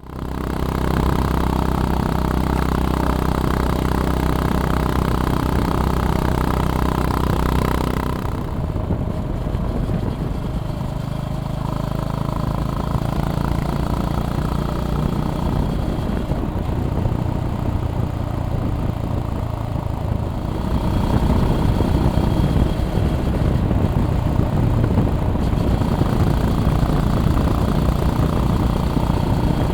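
Honda GB350S's air-cooled single-cylinder engine running while riding. It holds a steady pitch for about eight seconds, eases off abruptly, and picks up again a little past twenty seconds.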